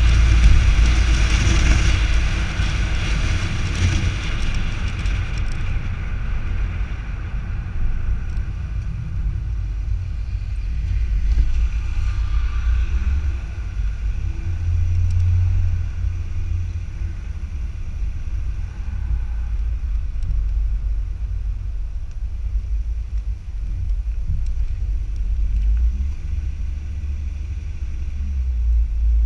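Car driving, heard through a camera mounted on the outside of the car: a steady low wind rumble with road and tyre noise. A brighter hiss in the first six seconds then dies down.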